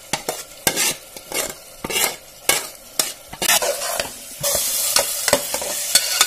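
Metal spatula scraping and stirring red lentils in hot oil in a pressure cooker, with repeated sharp scrapes against the pot. A frying sizzle underneath grows into a steady hiss a little over four seconds in.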